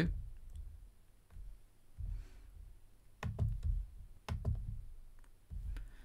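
Computer mouse clicks, a few at a time in small clusters, made while selecting points in a CAD program.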